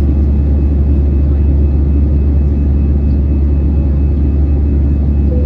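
Airbus A320 cabin noise in flight after take-off: the jet engines and rushing air heard from inside, a loud, steady low rumble.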